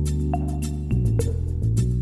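Instrumental background music: sustained chords that change every second or so over a light, steady beat.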